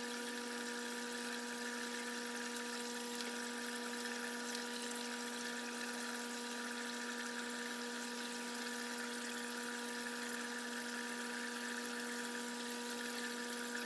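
Small electric motor running steadily with a constant whine.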